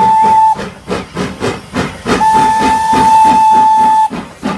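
Steam locomotive sound effect: a rapid steady chuffing with a whistle toot that ends about half a second in, then a long held whistle blast starting about two seconds in and lasting about two seconds.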